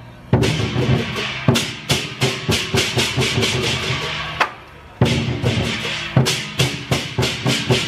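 Drum-led percussion music for a dragon dance, a fast run of sharp drum strikes. It breaks off briefly right at the start and again about four and a half seconds in, then resumes.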